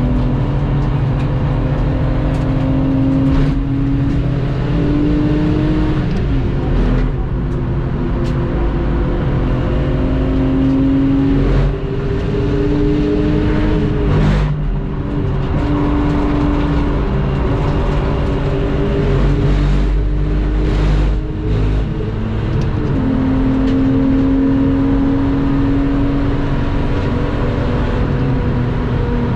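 Lexus IS200's straight-six engine pulling through the gears: its pitch climbs steadily, then drops at each gear change, about six times, over steady wind and tyre noise.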